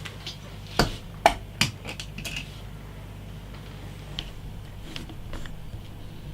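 Small hard plastic and metal items being handled: about five sharp clicks and knocks in the first two and a half seconds, then a few faint ticks over a low steady hum.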